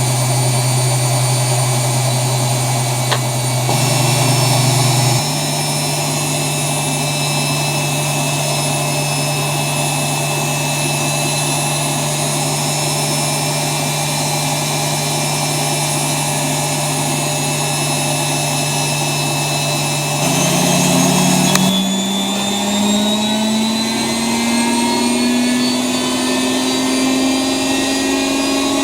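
ELIN WA 14 M washing machine running, its motor whine holding steady and stepping up twice in the first few seconds. About two-thirds of the way in the whine starts rising steadily in pitch as the drum speeds up into a spin.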